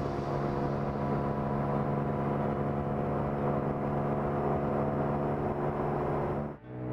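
Porsche 718 Cayman GT4 RS's 4.0-litre flat-six engine running at a steady, unchanging pitch while the car drives at speed. The sound drops out briefly about six and a half seconds in, then the engine note comes back slightly changed.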